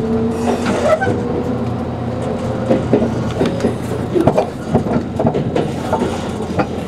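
Running noise heard inside a JR Kyushu 787 series limited-express car moving along the track: a steady rumble from the wheels and running gear, with irregular clicks and knocks as the wheels cross rail joints. A faint tone rises slightly over the first three seconds.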